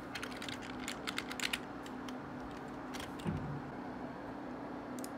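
Quick run of computer keyboard and mouse clicks, about eight in the first second and a half, then single clicks about three and five seconds in, over a steady low hum. A soft low thump just after three seconds.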